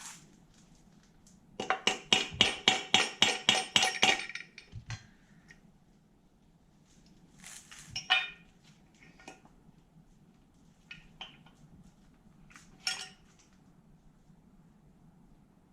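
Small metal engine parts and tools clinking against each other: a quick, ringing run of about six clinks a second lasting a couple of seconds, then a few single clinks.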